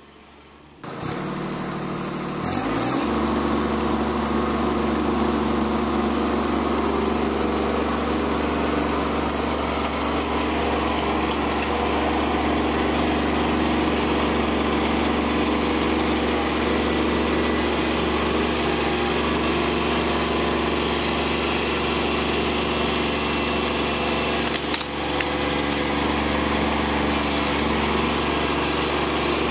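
Kubota B2601 compact tractor's diesel engine comes in about a second in, rises briefly in pitch, then runs steadily, with a short dip in level near the end.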